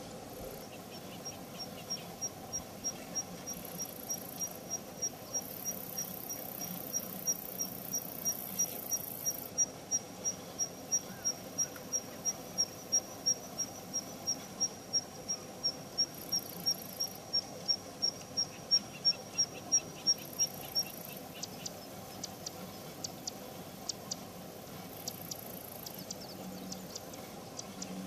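Swinhoe's snipe calling: a long, even series of short, high, pure pips, about two or three a second, that stops about two-thirds of the way through and gives way to scattered dry ticks. A steady low hum lies underneath.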